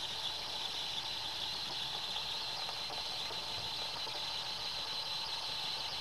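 Saeco Exprelia Evo superautomatic espresso machine steaming and frothing milk through its milk carafe into a cup: a steady hiss with a thin, high whine riding on it.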